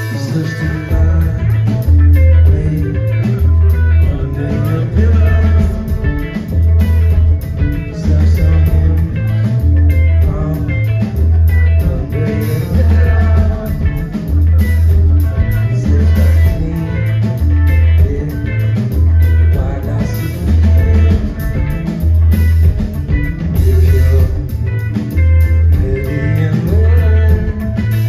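Live rock band playing, heard from among the audience: an electric guitar riff, joined about half a second in by a pulsing bass line and a steady beat.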